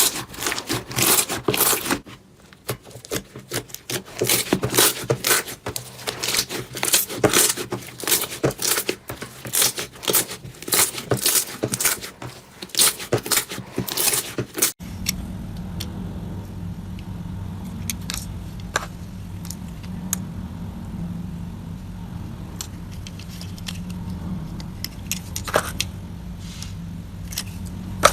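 Slime being squeezed and pressed by hand, giving dense crackling and popping clicks. About halfway through it changes abruptly to quieter handling, a few scattered clicks over a steady low hum.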